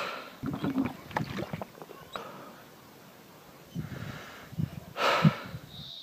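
A man's heavy breaths close to the microphone, in two spells, with wind buffeting the mic between them. Near the end a steady, high cicada drone comes in.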